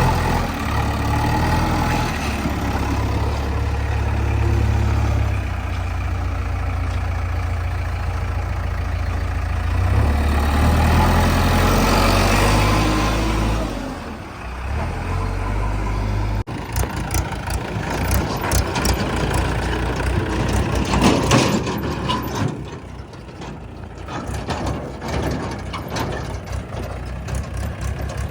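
Diesel engine of heavy earthmoving machinery running with a low, steady drone; a bit past halfway it changes abruptly to a choppier clatter of many short knocks, which fades briefly near the end.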